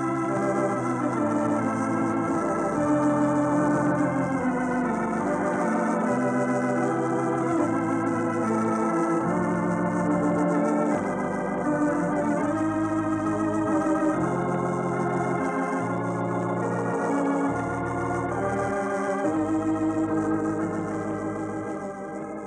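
Organ music, the program's closing theme: sustained wavering chords that change every second or so, beginning to fade out at the very end.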